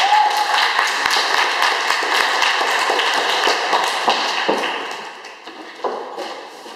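Audience applauding: a dense, steady patter of many hands clapping that dies away about five seconds in.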